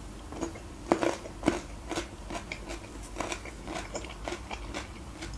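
Close-miked chewing of a bitten pickled gherkin: irregular wet crunches and mouth clicks, loudest about a second in.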